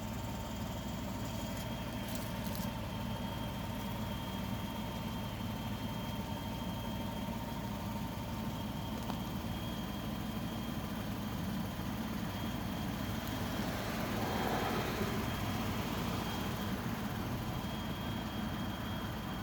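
Ford EcoBoost turbocharged engine idling: a steady low hum with thin, steady high-pitched tones above it, the strange noise the owner is recording. A brief louder rushing swell comes about fourteen seconds in.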